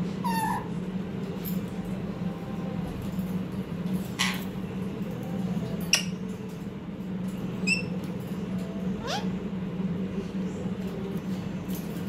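Rose-ringed parakeet (Indian ringneck) giving short, sharp calls, about five spread a second or two apart, over a steady low hum.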